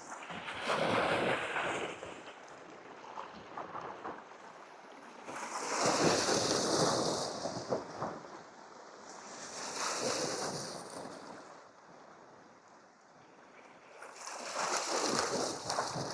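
Sea waves surging and washing over shore rocks, swelling and falling back four times, about four to five seconds apart.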